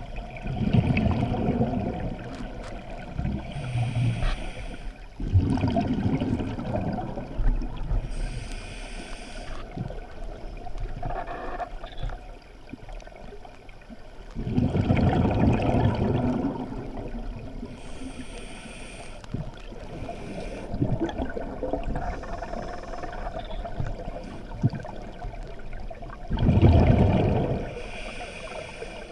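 Scuba regulator breathing heard underwater. A short hiss of inhalation through the regulator is followed by a longer burst of exhaust bubbles rumbling past the camera. The cycle repeats slowly, about every ten seconds, and the bubble burst is the loudest part.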